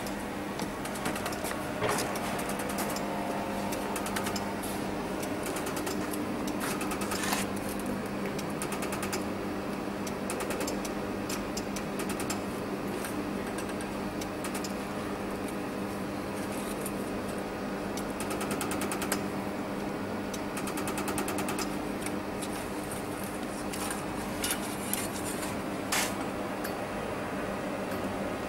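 BHJ 300W pulsed laser welding machine firing runs of rapid, evenly spaced clicking pulses on stainless steel, starting and stopping in bursts. Its cooling unit hums steadily underneath.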